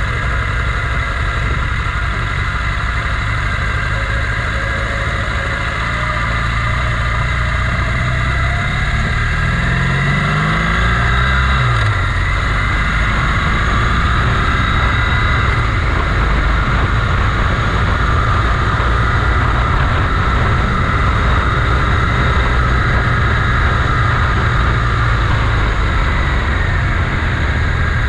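Motorcycle engine running on the move, rising in pitch as it accelerates about ten seconds in, then dropping back.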